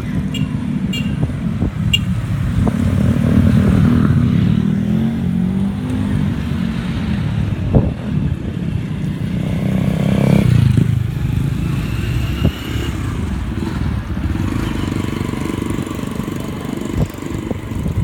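Road traffic heard from a moving bicycle: motorcycles and other motor vehicles running past, the engine noise swelling about three seconds in and again about ten seconds in, with occasional knocks.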